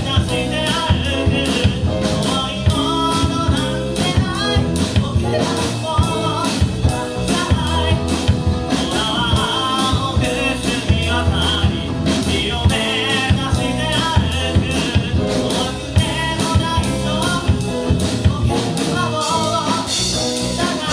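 Live rock band playing loudly with a singer, drum kit and electric guitars, the drums keeping a steady beat under the vocal line.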